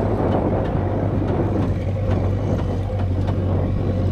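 Off-road 4x4 running steadily across sand dunes: a continuous low engine drone with noise from the ride and scattered light clicks.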